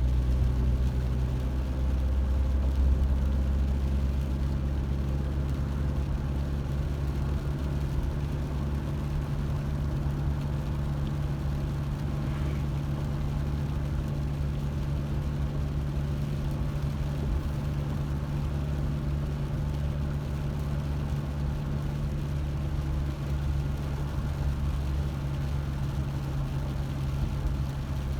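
Steady low drone of a car running, engine and road noise holding even throughout.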